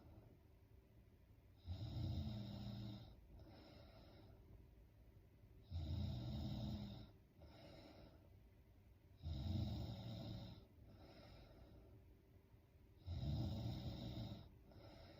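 A woman snoring in her sleep: four loud snores, about one every four seconds, each followed by a quieter, shorter breath.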